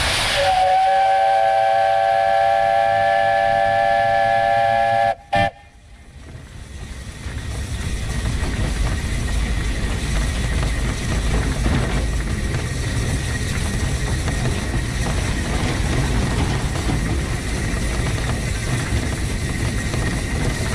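The whistle of the 1915 Orenstein & Koppel steam locomotive blows a steady chord of several tones for about five seconds, then cuts off abruptly. The locomotive then runs along the track with a steady running noise.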